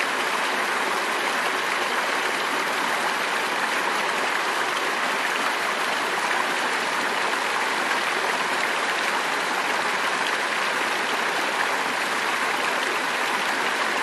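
The Purgatoire River running: a steady, even rush of flowing water with no breaks.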